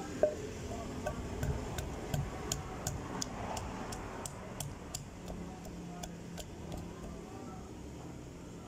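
Pestle pounding garlic cloves and ginger in a mortar: a run of short knocks, about two or three a second, the first one the loudest.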